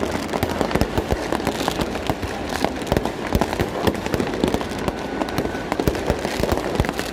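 Fireworks display going off: a dense, continuous stream of bangs and crackling pops in rapid, irregular succession.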